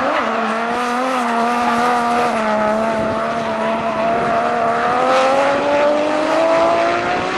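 Drift car engine running hard at a steady pitch, rising slowly over the last couple of seconds, over tyre squeal from cars drifting sideways.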